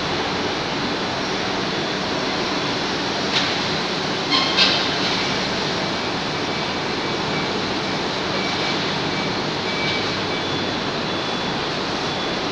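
Bottling-plant machinery running with a steady, even noise, with a few short metallic clanks about three and a half and four and a half seconds in.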